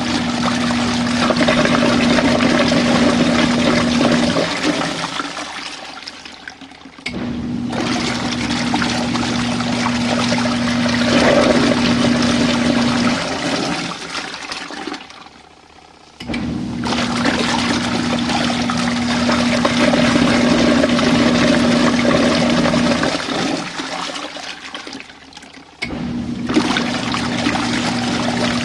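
Small RV washing machine churning water in its tub, with a steady motor hum, running in spells of about five seconds with pauses of about three seconds in between, the water noise dying away in each pause: an agitation cycle.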